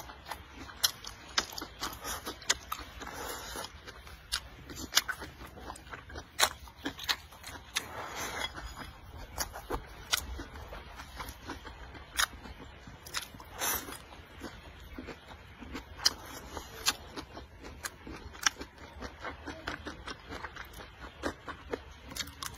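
Close-miked chewing of rice, pork and greens, with frequent short sharp clicks and wet mouth sounds.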